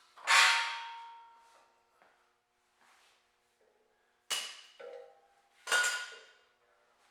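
Metal sawmill track sections clanging as they are handled and set into place. A loud ringing clang comes just after the start and two shorter clangs follow near the end.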